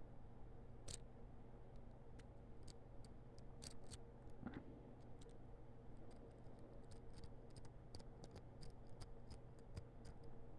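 Faint, irregular clicks and scrapes of a lock pick and tension wrench working the pins inside a small padlock.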